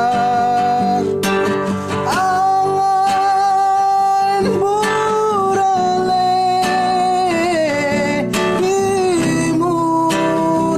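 Acoustic guitar played with plucks and strums, accompanying a voice singing long held, wavering notes in a Kerinci regional song.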